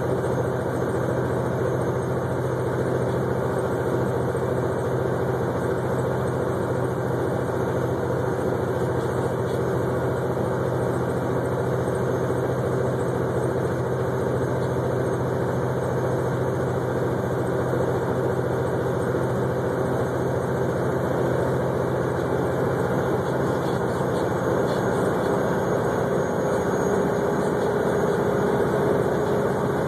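Diesel engine of an 18-wheeler semi-truck running steadily at highway speed, heard inside the cab as a constant drone mixed with road noise. Its pitch creeps up slightly near the end.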